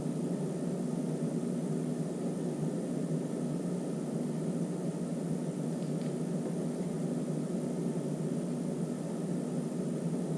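Steady low hum with a hiss over it, unchanging, with no distinct handling sounds standing out.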